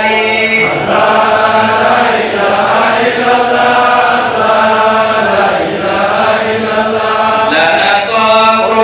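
Male voice chanting a devotional melody through a microphone and loudspeakers, in long held notes. Through the middle a group of voices carries the chant while the soloist's microphone is lowered, and his solo voice returns near the end.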